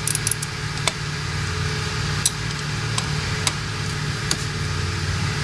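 Steady low hum of the shop in the background, with a handful of short, light clicks of a wrench and socket working on a fuel line fitting at the fuel filter.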